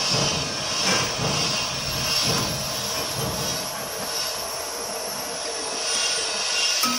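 Steady hum and hiss of running machinery, with a few faint knocks as metal tooling is handled.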